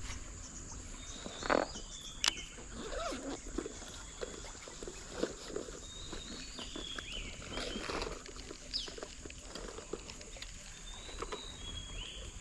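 Tropical stream-side ambience: a steady high insect drone, with short whistled bird calls coming and going. Two sharp knocks come about two seconds in.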